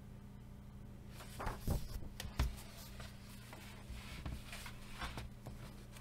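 A paper colouring-book page being turned: a rustle with a couple of sharp flaps about a second and a half in, then fainter rustling of the paper.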